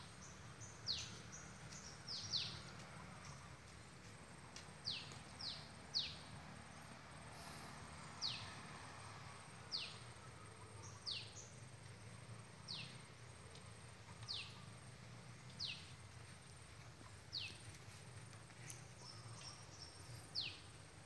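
A bird calling over and over with short, sharp, high notes that each slide steeply downward, a few in quick pairs or threes at first, then about one every second and a half, over a faint steady low hum of outdoor background noise.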